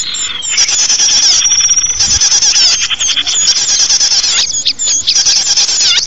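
Dense, overlapping high-pitched chirping and twittering of many small songbirds, as played in a bird-luring call compilation, with a brief held whistle about a second and a half in.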